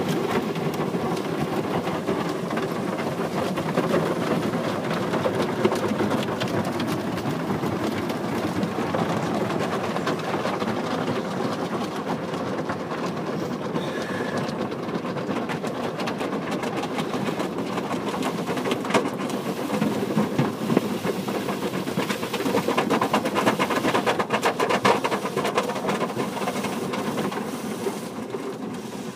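Belanger tunnel car wash working over a car: a steady wash of water and machinery, with many quick knocks and rattles throughout.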